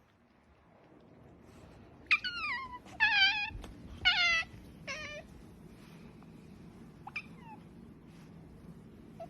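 Pet otter calling: four high-pitched calls about a second apart, the first sliding down in pitch, then a fainter short call a couple of seconds later.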